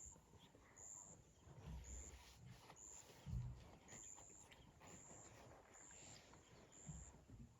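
Near silence: quiet outdoor ambience with a faint high chirp repeating about once a second and a few soft low thumps, the loudest about a third of the way in.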